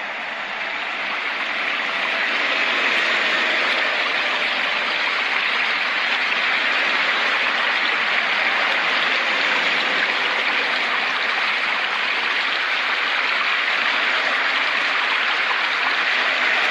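Steady rushing of flowing water, like a stream, swelling a little over the first two seconds and then holding even.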